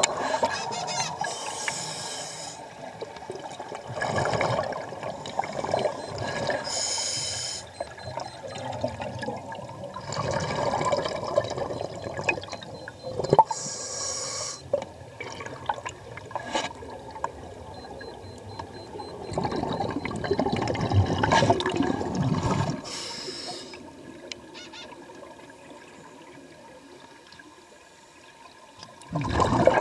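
Scuba breathing underwater through a regulator: repeated bursts of hissing and bubbling every few seconds, quieter for a few seconds near the end.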